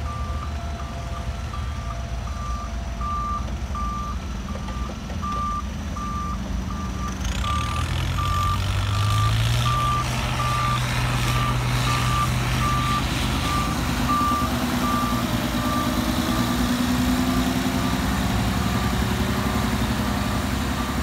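A heavy-machine reversing alarm beeping steadily, about two beeps a second, over the diesel engines of earthmoving machinery. About seven seconds in, an engine revs up and runs louder from then on.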